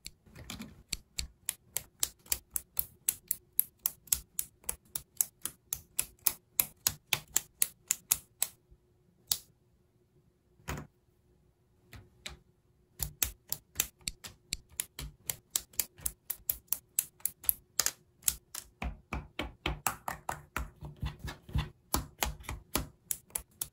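Lego Technic plastic pieces being pressed and snapped together by hand: a rapid run of sharp clicks, about three a second, with a short lull about halfway through.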